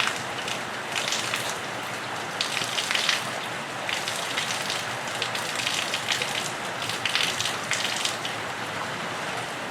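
Rain falling on a roof and running off it: a steady hiss of rainfall with scattered close splatters and drips.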